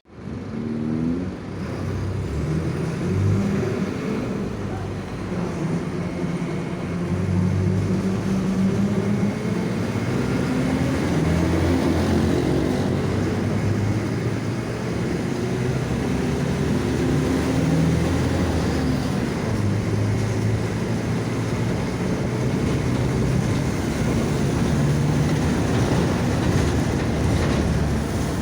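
Mercedes-Benz OF-1722M bus diesel engine pulling under load, its pitch rising and falling several times as the bus speeds up and eases off. Over it the differential growls.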